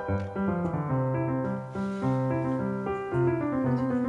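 Background piano music: a melody of single notes over lower, longer-held bass notes.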